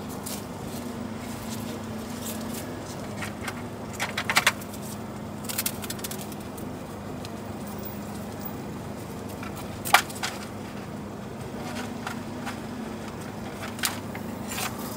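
Scissors snipping and metal utensils clicking against a steel tray while a waffle is cut, in scattered sharp clicks, a quick run of them about four seconds in and the loudest near the middle. Under them runs a steady low electric hum.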